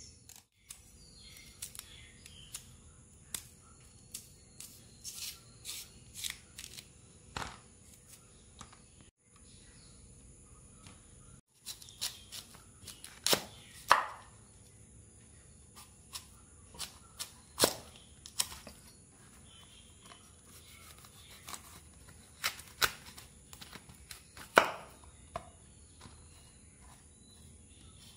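Large knife cutting through a cassava root on a wooden chopping board: irregular sharp knocks and cracks as the blade goes through and strikes the board, a few of them much louder than the rest.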